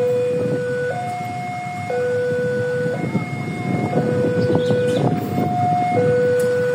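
Railway level-crossing warning alarm, an electronic two-tone signal switching between a higher and a lower tone about once a second, sounding because a train is approaching. Road traffic noise runs underneath.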